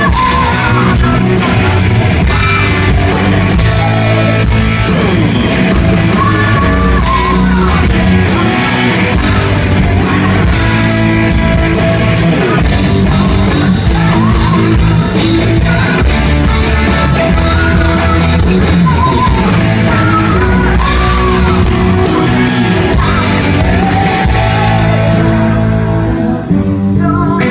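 Live rock band playing loudly: electric guitars and drums with a woman singing lead.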